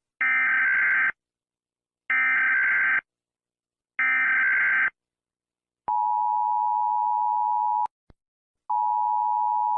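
Emergency Alert System header: three one-second bursts of SAME digital data tones, then the two-tone attention signal sounding twice, steady for about two seconds each time.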